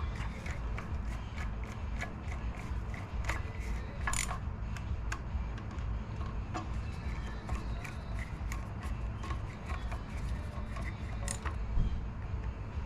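Irregular light clicks, taps and scrapes of small metal parts and hand tools being handled while the tiller engine is reassembled, with one louder knock near the end, over a steady low hum.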